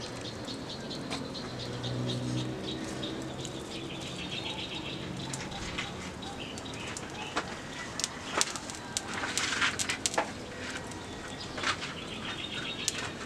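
Small birds chirping in quick repeated notes, with a low cooing call in the first few seconds. Scattered sharp knocks and clatters from firewood and a metal cooking pan being handled, loudest a little past the middle.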